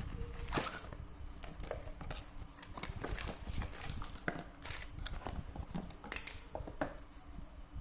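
Irregular clicks, taps and light knocks of packaging and parts being handled while a digital multimeter is unboxed.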